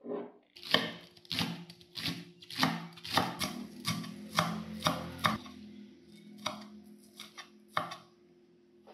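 Chef's knife slicing scallions on a wooden cutting board. A steady run of cuts comes about every half second, then turns into a few spaced-out strokes after about five seconds.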